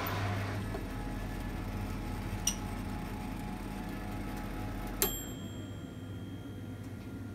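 Low steady hum of a convection oven's fan running, with a light click about two and a half seconds in and a sharper click about five seconds in, after which the deepest part of the hum stops.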